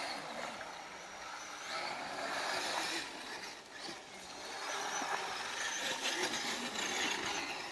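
RC scale crawler truck driving the course: its small electric motor and geartrain whirring in two spells of throttle, with tyres working over the terrain.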